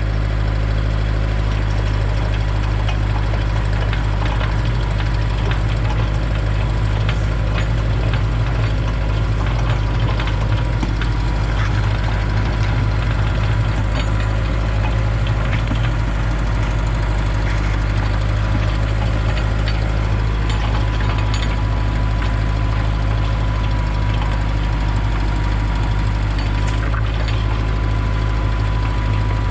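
Kubota tractor's diesel engine running steadily under load while the Bradco 625 auger bores down into the ground, a constant low drone with a faint steady whine above it.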